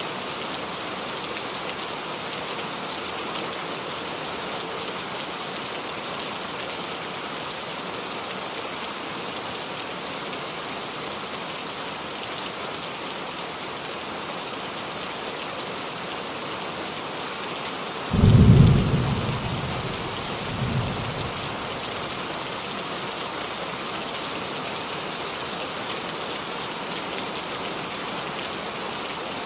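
Steady rain falling on a roof. About two-thirds of the way through, a sudden loud thunderclap rumbles and fades over a second or two, followed by a second, weaker rumble.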